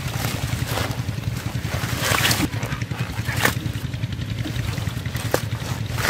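Water hyacinth leaves and stems rustling as they are pulled and parted by hand, with a handful of louder swishes, over a steady low rumble.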